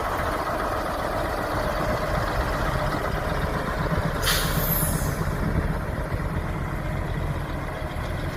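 Steady truck-like engine running with a low rumble, with a short air-brake-style hiss a little before halfway.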